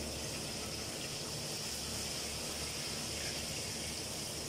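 Egg and grated cauliflower mixture frying in a pan, with a steady, even sizzle.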